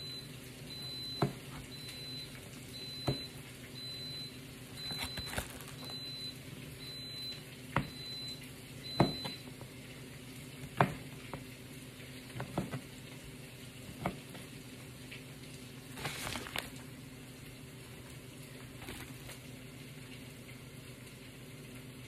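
A chef's knife knocks on the cutting board every second or two as it cuts beef into cubes. Underneath is the steady sizzle of onions and peppers frying on low heat.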